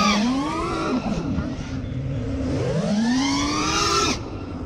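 FPV quadcopter's brushless motors and propellers whining, the pitch swinging up and down with the throttle. A long climb to a peak comes near the end, then cuts off suddenly as the throttle is chopped.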